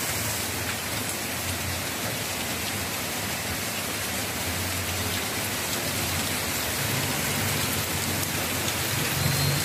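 Heavy rain pouring down: a steady, dense hiss.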